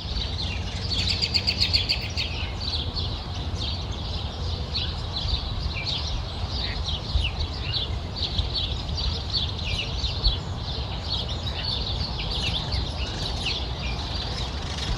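A dense chorus of many birds chirping and calling at once around a pond, with short overlapping notes and a fast repeated trill about a second in. A steady low rumble runs underneath.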